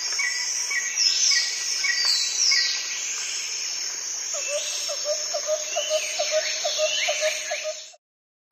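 Nature ambience of birds chirping over a steady high insect drone: many short falling chirps and a string of repeated notes, joined about halfway through by a fast, lower trill. It all stops shortly before the end.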